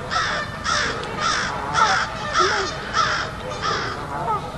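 Birds calling, a run of about eight harsh, evenly repeated calls, roughly two a second, that fade near the end.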